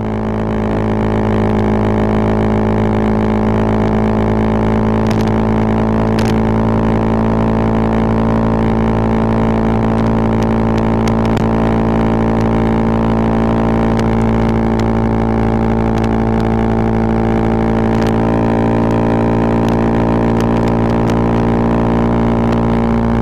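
Bajaj Pulsar 220F's single-cylinder four-stroke engine idling steadily through an aftermarket full-system exhaust, its pitch unchanging, with a few brief clicks.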